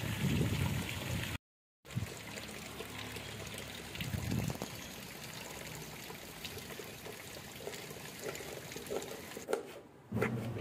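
Water pouring steadily from the pipe of a rooftop water tank and splashing down, with a short dropout to silence about a second and a half in.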